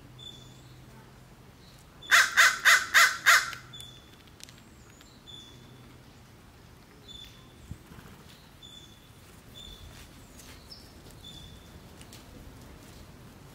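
A crow cawing five times in quick succession about two seconds in. A small bird's short, high chirp repeats about once a second in the background.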